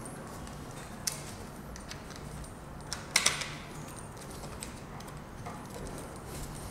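Plastic clicks and light rattling as a Minelab Vanquish metal detector's search coil is handled and fitted onto its lower shaft. There is a single click about a second in and a louder clatter about three seconds in.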